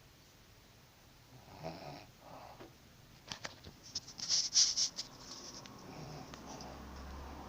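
A sleeper snoring and breathing noisily, with a couple of slow breaths. About halfway through comes a quick run of sharp clicks and hissing noises, the loudest part, then softer breathing.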